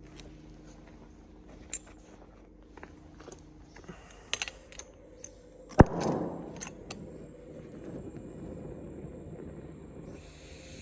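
Metal tools and parts clinking and knocking in a workshop, with one loud sharp metal clank about six seconds in, followed by a steady hiss.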